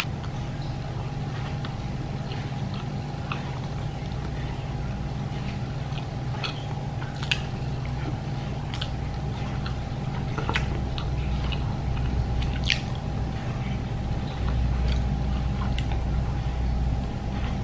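Someone biting into and chewing a soft bread roll topped with shredded cheese, with scattered small crackles and clicks, over a steady low background hum.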